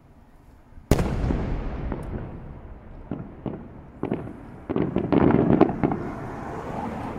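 A 2-shaku (about 60 cm) aerial firework shell bursts with a sharp boom about a second in, followed by a long rolling echo. Several smaller cracks and booms come after it, bunching together loudest around five seconds in.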